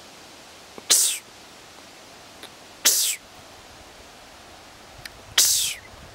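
Three sharp, breathy snorts about two seconds apart: a person imitating a white-tailed doe's snort, close to the microphone.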